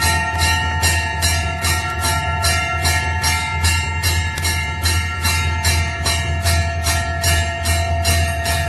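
Temple bells ringing in a steady rhythm, about four strikes a second, their ringing tones held continuously over a low steady drone.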